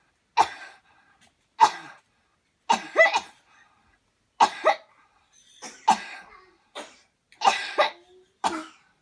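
A person coughing deeply and repeatedly: about a dozen sharp coughs in clusters, some in quick pairs, with short gaps between. The coughs are brought on by a deep-breathing coughing exercise meant to clear the chest.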